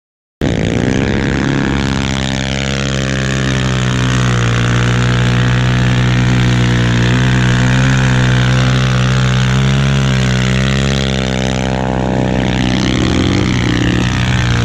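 ATV engine idling steadily, its pitch wavering only slightly, starting abruptly about half a second in.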